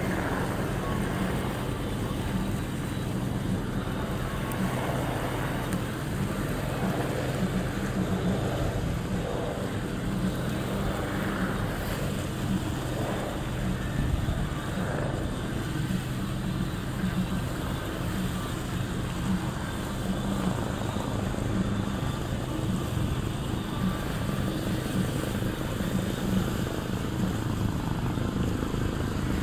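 Steady low engine drone, with wind and water noise over it.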